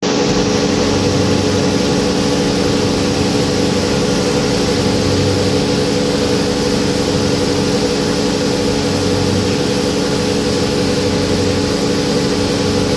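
Rice milling machine running steadily: a constant mechanical drone with several even hums under a broad hiss.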